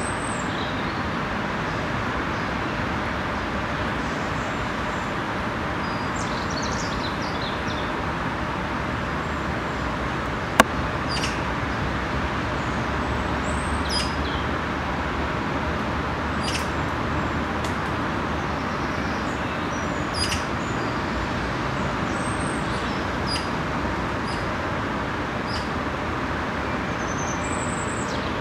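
Steady background roar of distant road traffic, with small birds chirping now and then high above it and one sharp click about ten seconds in.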